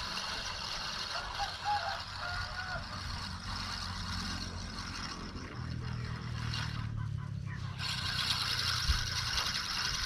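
A low motor hum comes in about halfway through, over a steady high hiss of outdoor background noise, with a few faint chirps early on.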